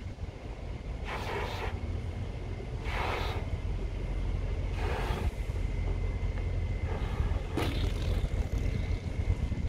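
A large balloon being blown up by mouth: four breathy puffs about two seconds apart, one for each breath. Steady low wind rumble on the microphone underneath.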